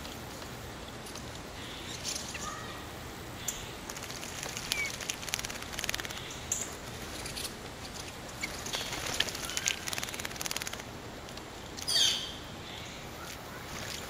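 Eastern bluebirds bathing in a shallow bird bath: bouts of splashing and water patter as they flick their wings, with short chirps here and there and one louder, sharp, falling call near the end.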